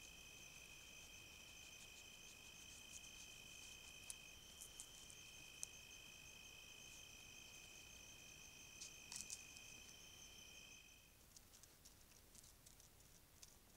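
Faint, steady trilling of night insects, at least two at different pitches, that stops about eleven seconds in, with a few faint clicks scattered through it.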